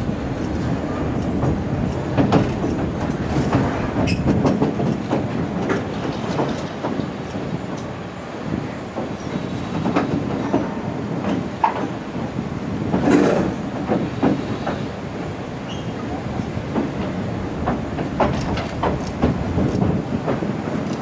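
Passenger train running across a steel trestle viaduct, heard from an open carriage window: a steady rattle and clatter of wheels on the rails with scattered clicks, and one louder sharp noise a little past the middle.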